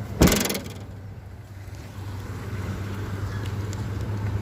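A short, loud rattling burst lasting about half a second just after the start, followed by a steady low hum inside a car.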